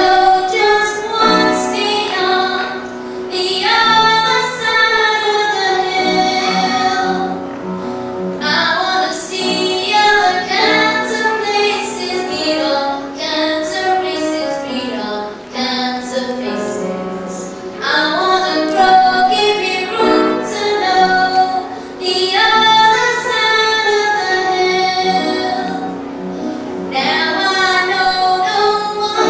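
A girl singing a solo song in long phrases over an instrumental backing track.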